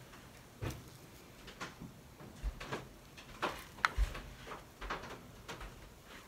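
A stir stick scraping and tapping against the inside of a small plastic paint cup as paint is scooped out, giving a scatter of irregular light clicks, with a couple of dull low knocks in the middle.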